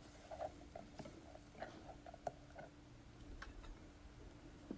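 Faint, scattered light taps and clicks of a wooden spoon stirring meat in a stainless steel pot.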